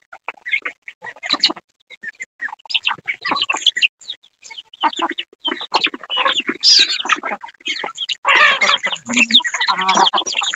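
A flock of domestic chickens clucking and calling while they feed, with many short clicks mixed in. The calling grows busier and louder in the second half.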